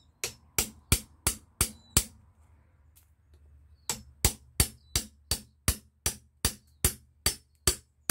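Hammer striking a chisel cut into a green cherry plum branch, about three blows a second. A run of six blows, a pause of about two seconds, then a run of eleven more.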